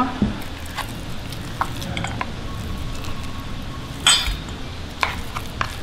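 A steel spoon scrapes and taps against a stainless-steel mixer jar and bowl as ground mung bean batter is scooped out, with a sharp ringing metal clink about four seconds in and a lighter one a second later.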